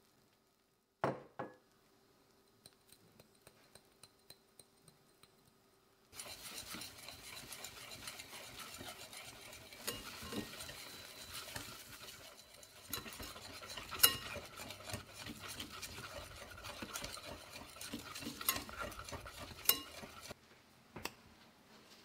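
Wire balloon whisk beating flour into egg batter in a ceramic bowl: a steady scraping stir with sharp clinks of the wires against the bowl. It starts about six seconds in and stops shortly before the end. A single knock comes about a second in.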